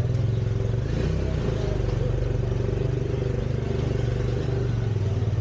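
A tuk-tuk's small engine running steadily as it rides along, heard from on board.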